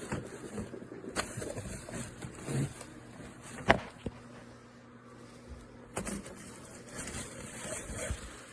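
Irregular rustling and light clicks, with one sharp click about three and a half seconds in.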